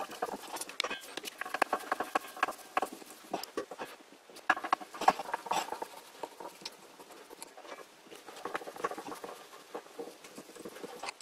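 Screwdriver undoing the small screws that hold a variable frequency drive's circuit board to its heatsink: irregular runs of small clicks and scratches.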